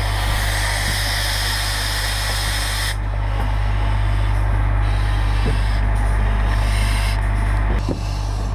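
Hiss of air from a firefighter's breathing-apparatus facepiece that cuts off suddenly about three seconds in and comes back briefly about six seconds in, over a steady low rumble from a fire engine running on the street.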